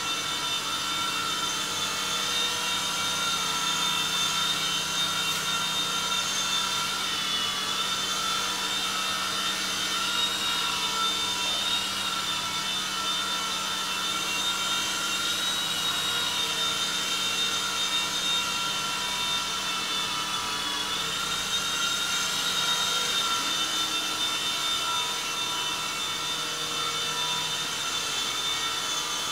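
Small two-channel coaxial RC toy helicopter hovering: a steady high whine from its tiny electric motors and spinning rotors. The pitch dips and recovers slightly a few times as the throttle is worked.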